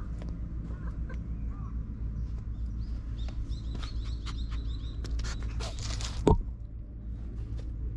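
Small birds chirping in short repeated calls over a steady low rumble, with a brief burst of noise and a single sharp knock about six seconds in.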